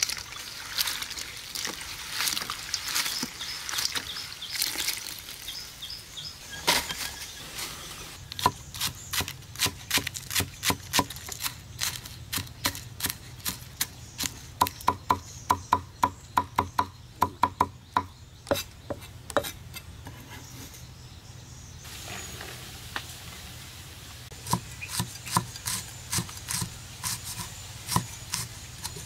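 Hands rubbing and sloshing grasshoppers in water in a steel bowl, then a large kitchen knife chopping spring onions on a thick wooden board: a long run of sharp knocks, about three to four a second at the fastest. After a short pause near the end, the chopping resumes on red chillies.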